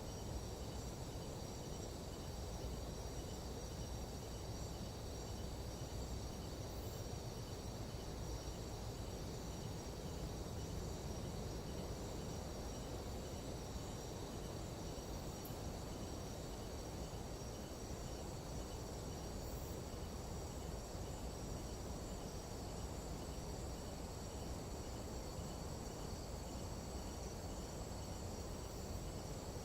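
Night-time jungle insect chorus: several steady, high, overlapping trills with an evenly pulsing insect call beneath them, over a constant low background noise.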